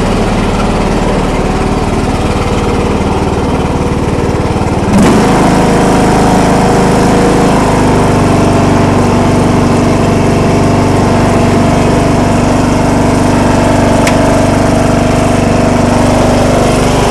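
John Deere L100 riding mower's 17-horsepower OHV engine running steadily just after a cold start. It gets suddenly louder about five seconds in, then runs steadily again.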